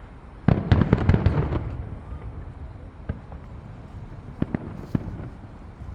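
Fireworks bursting: a rapid volley of sharp crackling bangs about half a second in, then a few scattered single bangs.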